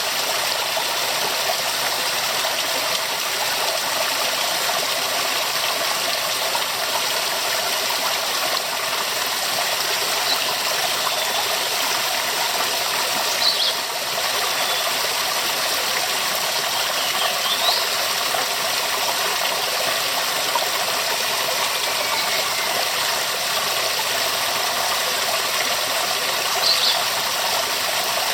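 Waterfall: a steady, even rush of falling water. A few brief, faint high chirps rise above it now and then.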